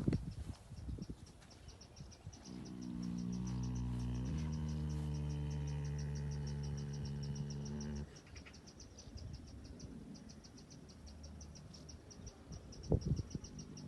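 Sleeping Andalusian horse snoring: one long, low, steady snore begins a couple of seconds in, drops in pitch partway and stops abruptly after about five seconds. A short breathy snort comes near the end, over faint, fast cricket chirping.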